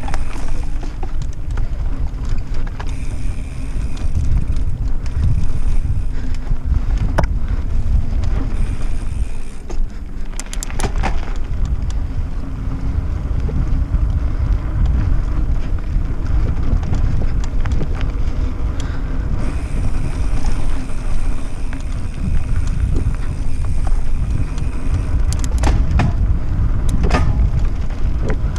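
Mountain bike ridden fast over a dirt singletrack: a loud steady rumble of wind buffeting the camera microphone and tyres on the dirt, with sharp rattles of the bike over bumps a few times, clustered near the middle and near the end.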